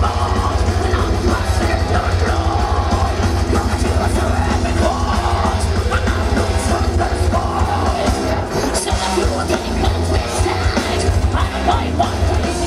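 Metal band playing live on stage: distorted electric guitars over heavy bass and pounding drums, with a yelled, screamed vocal.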